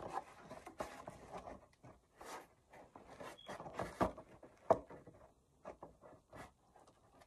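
Faint handling noises from a 3D-printed PLA helmet shell being turned and checked in the hands: light rubbing and scattered small taps, with a sharp knock about four and a half seconds in.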